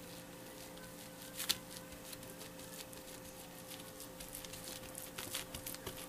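Faint soft pats and crackles of fingers pressing and spreading sticky sushi rice over a nori sheet on a plastic-covered bamboo rolling mat, with a sharper tap about a second and a half in and a run of small crackles near the end. A faint steady hum lies underneath.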